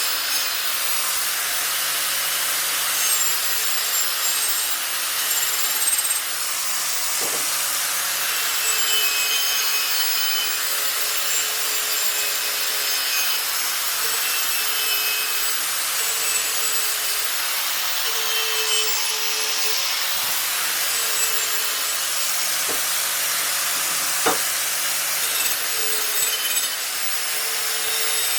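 Abrasive power tool running steadily against a surface, a continuous rasping hiss with a faint motor hum, broken by a couple of sharp clicks.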